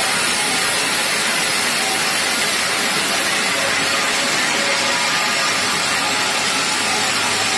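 DAFON kerbstone cutting machine's large circular diamond saw blade cutting through granite blocks under water spray: a steady, unbroken grinding noise.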